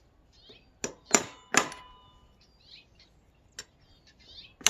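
Metal tool striking the U-shaped retaining washer on a riding mower's steel wheel axle to knock it off: three sharp metallic clangs about a second in, each ringing on briefly, then a light tap and another clang at the very end.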